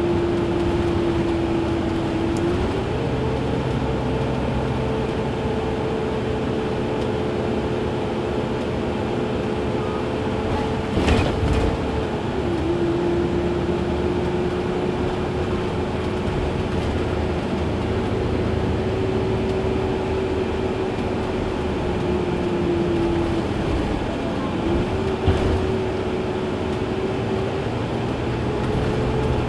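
Iveco Crossway LE CNG bus's natural-gas engine idling at a standstill, with a steady whine that steps up and back down in pitch a few times. A short hiss comes about eleven seconds in.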